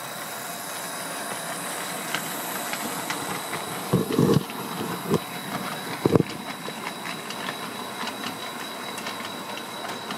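HO-scale Trainorama S class model diesel locomotives running on layout track, their motors and freshly replaced axle gears (the old ones had split) whirring quietly, with light clicking of wheels over rail joints. A few dull thumps about four and six seconds in.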